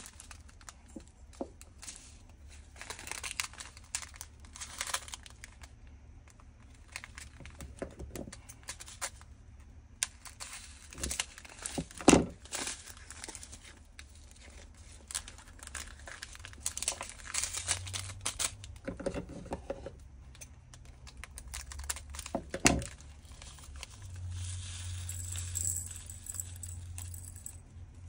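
Small plastic bags of diamond-painting beads crinkling and rustling as they are handled and opened, in uneven bursts. A few sharp knocks on the desk stand out, the loudest about halfway through.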